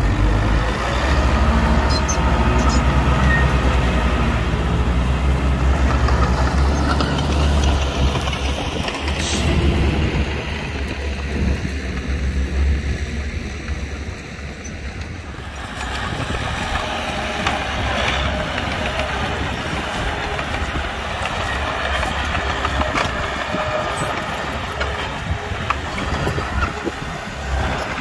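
Diesel engines of heavy earthmoving machinery running with a deep, steady drone. It eases for a few seconds around the middle, then picks up again, with one sharp knock about nine seconds in.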